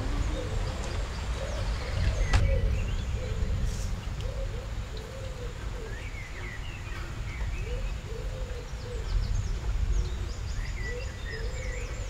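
Repeated short cooing calls and scattered chirps, with quick high twitters near the end, over a steady low rumble. A single sharp click about two seconds in.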